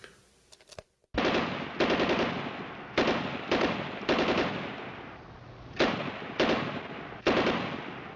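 Gunfire: a string of sharp shots or short bursts starting about a second in, irregularly spaced, each trailing off in echo.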